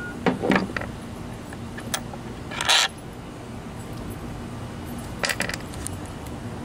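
Loose metal skateboard truck parts (hanger, bushings and washers coming off the kingpin) clinking and rattling in a few short bursts. The loudest is a brief rattle a little under three seconds in.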